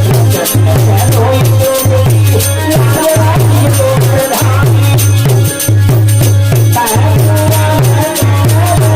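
Folk music playing: a steady drum beat about twice a second under a wavering melody, with shaken rattle-like percussion.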